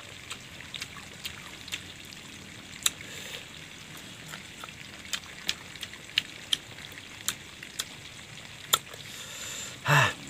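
A person chewing pieces of young, sour kedongdong (ambarella) fruit in rujak close to the microphone: irregular wet crunches and mouth clicks. A short vocal sound near the end is the loudest sound.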